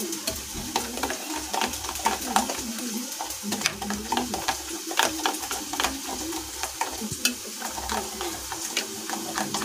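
Spoon stirring a thick curd-and-spice marinade in a glass bowl, with many small irregular clicks and scrapes against the glass. Behind it, a steady sizzle of soya chaap frying in hot oil.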